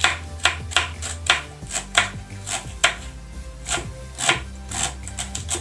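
Kitchen knife slicing a cabbage into thin shreds on a cutting board: sharp, irregular chops, two or three a second, coming faster in a quick run near the end.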